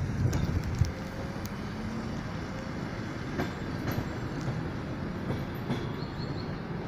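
Steady low rumble of a train passing at a distance, with a few faint clicks.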